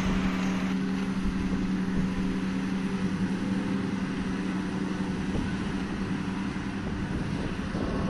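Self-propelled forage harvester and a tractor pulling a silage trailer at work, chopping wilted grass and blowing it into the trailer. Their engines and the chopper make a steady drone with a low rumble.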